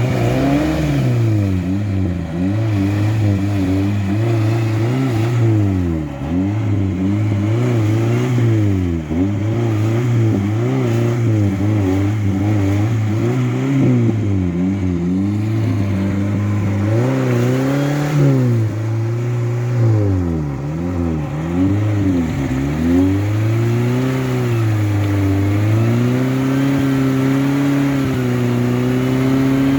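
Suzuki Samurai engine revving up and down over and over, its pitch rising and dropping every second or two, then climbing more steadily near the end.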